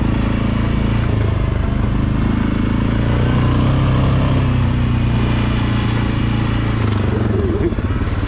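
ATV engine running steadily on the move, with a brief dip in level near the end.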